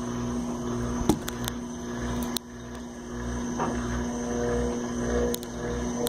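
Electrolux LT12F top-loading washing machine starting its spin cycle: a steady motor hum with a low pulsing underneath as the basket begins to turn. A few sharp clicks come around a second in and again near the end.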